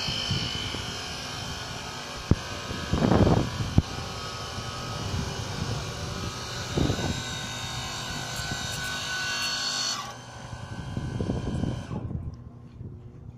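Steady electrical buzz and hum of high-voltage switchyard equipment, with several fixed tones held over a hiss. A few dull low thumps, the loudest about three seconds in, and the buzz falls away sharply near the end.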